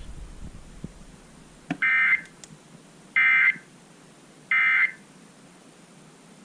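Emergency Alert System end-of-message (EOM) signal: three short, identical bursts of warbling SAME digital data tones, about a second apart, marking the end of the severe thunderstorm warning.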